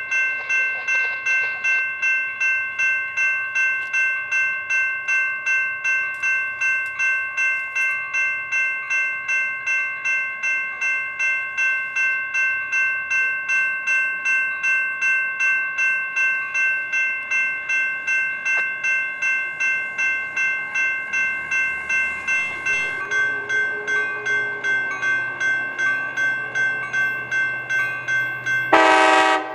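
Railway bell ringing steadily, about two strikes a second, as a commuter train approaches. A short, loud train horn blast sounds near the end.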